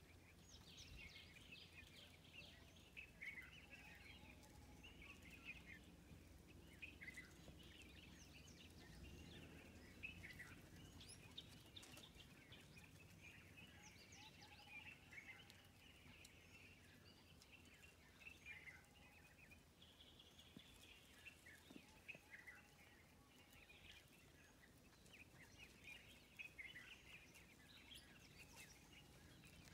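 Faint, busy chorus of small birds chirping and calling, many short high chirps overlapping throughout, over a low steady hum.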